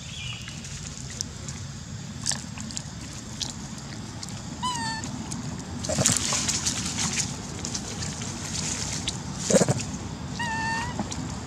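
A baby macaque gives two short, high squeaky calls about six seconds apart, with scuffling in dry leaves between them and a sharp thump just before the second call.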